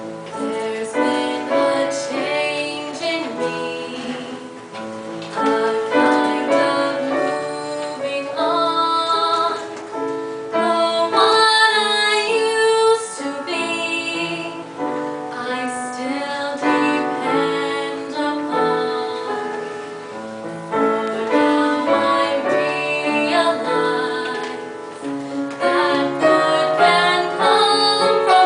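Music: a female voice singing a slow song over piano accompaniment.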